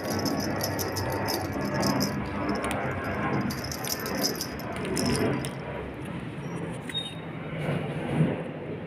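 Beaded cat wand toy rattling and jingling as it is shaken and batted by a kitten, a quick irregular run of light clicks that fades out about five seconds in.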